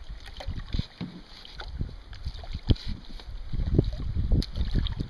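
Wind buffeting the microphone in uneven low gusts while a canoe is paddled on a river, with light water sounds and a couple of sharp knocks, one a little past the middle and one near the end.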